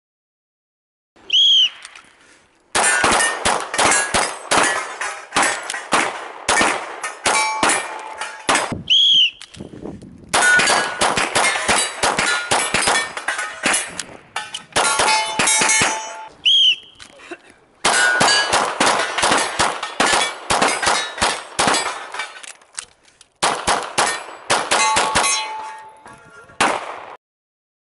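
Rapid strings of pistol shots, each a few seconds long, with steel targets clanging and ringing as they are hit. A short high tone sounds about a second before each string.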